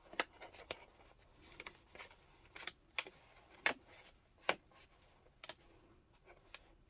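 Cardstock paper and adhesive tape being handled and pressed by hand: scattered, irregular crinkles and light taps.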